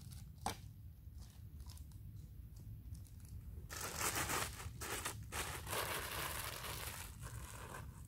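A clear plastic bag crinkling and rustling as it is handled, starting about halfway in and going on for about four seconds. A single light click comes about half a second in.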